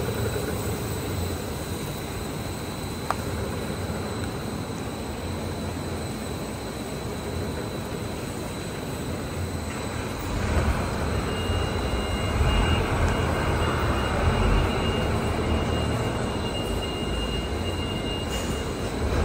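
LYAN-1850 solidboard laminating machine running: a steady mechanical rumble and hiss with a thin high whine. It gets louder about halfway through, where a second high tone joins.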